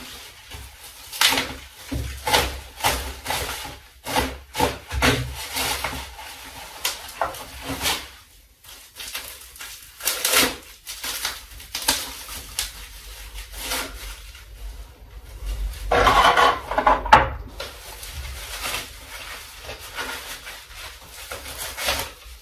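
Plastic packaging crinkling and rustling in irregular bursts as small parts are unwrapped by hand, with a longer, louder stretch of rustling about sixteen seconds in.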